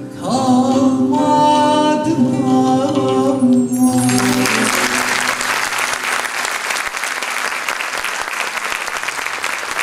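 A Turkish folk song ends, with singing and instruments holding a final note; audience applause breaks out about four seconds in and carries on.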